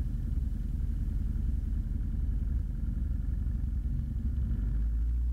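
Piper Archer II's 180 hp four-cylinder Lycoming engine running steadily at low power on the runway, a low drone heard inside the cabin.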